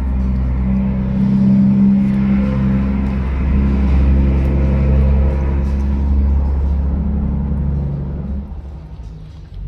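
Background music with held notes over a heavy bass, changing pitch step by step and fading down near the end.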